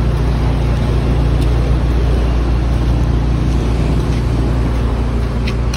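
Vehicle engine idling steadily, a low even drone.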